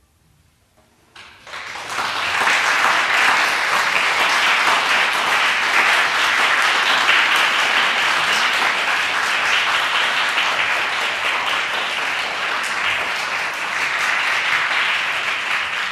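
Audience applauding: a dense, steady clapping breaks out suddenly about a second in, after near silence, and keeps going at full strength.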